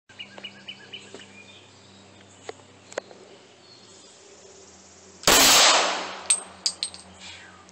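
A single shot from a Glock 22 .40 S&W pistol about five seconds in, very loud and trailing off over about a second, followed shortly by a few light metallic clinks.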